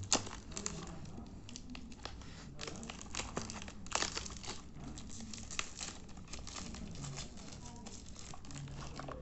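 Plastic or paper packaging crinkling and rustling, with some tearing, as a small boxed alarm clock is unwrapped by hand.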